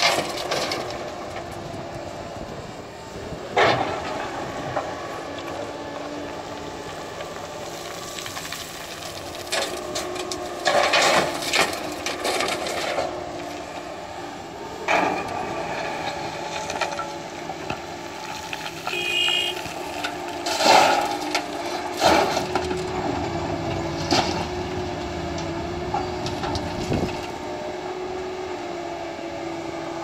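Doosan crawler excavator's diesel engine running steadily while it digs gravel and swings it into a tipper truck, with repeated crashes and clatter of stones and gravel, loudest near the start, around the middle and a couple of times after the two-thirds mark.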